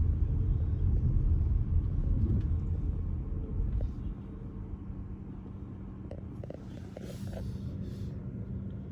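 Low road and engine rumble inside a moving car, dropping to a quieter level about four seconds in.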